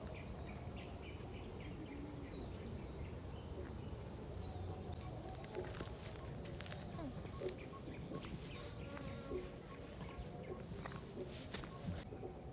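Several forest birds calling in short, quick chirps and whistles, over a steady low rumble, with a few sharp clicks.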